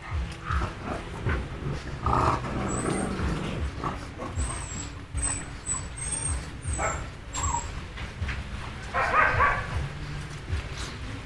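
Small pet dogs barking a few short times, the loudest bark about nine seconds in, with faint high chirps in between.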